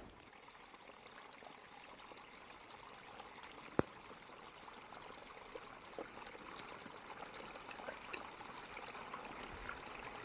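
Small forest brook trickling down a narrow gully, faint and growing louder toward the end. A single sharp click about four seconds in.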